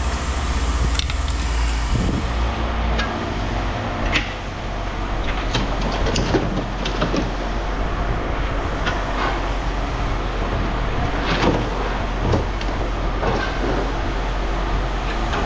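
A motor vehicle's engine runs steadily, with scattered knocks, clanks and rattles over it.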